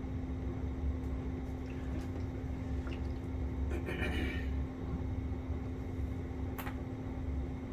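A rubber BMX grip, slick with isopropyl alcohol, being worked onto the handlebar: a brief wet squish about four seconds in and a sharp click near the end, over a steady low hum.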